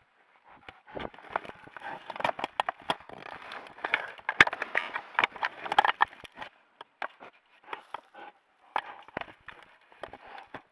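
A bear's fur and body rubbing, scraping and knocking against the camera at close range: a dense run of scratchy rubbing and sharp clicks, busiest in the middle and thinning to scattered knocks near the end.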